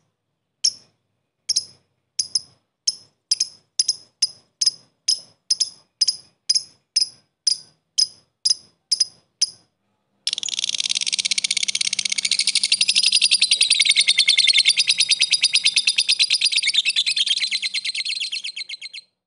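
Lovebird giving single sharp ticking chirps about twice a second (the 'ngetik' call). About halfway through it breaks into a long, fast, unbroken chattering trill (the 'ngekek') lasting around nine seconds, which stops just before the end.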